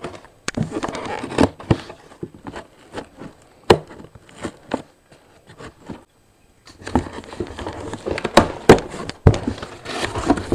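A cardboard shipping box being opened by hand: the packing tape scratched and cut through, then the cardboard flaps pulled open, giving irregular crackling, scraping and sharp clicks. The rustling grows busier near the end as the flaps come open.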